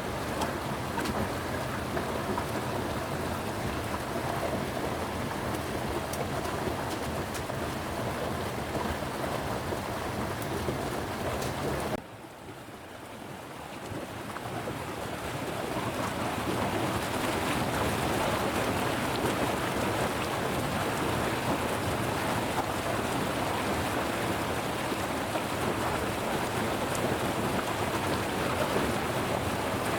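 Steady heavy rain hissing and pattering. About twelve seconds in it drops away suddenly, then swells back to full strength over several seconds.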